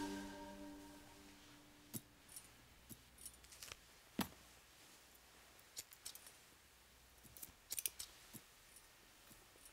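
Faint, scattered metallic clicks and snips of surgical instruments, such as scissors and a needle holder, during hand practice of surgical technique. There is a sharper click about four seconds in and a quick run of clicks near eight seconds, after fading music at the start.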